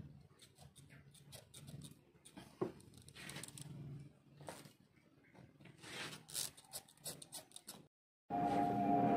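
A large knife blade cutting and scraping a small piece of cowhide leather on a metal block: faint rasps and light clicks, with one sharper click about two and a half seconds in. Near the end the sound breaks off and music with steady held tones begins.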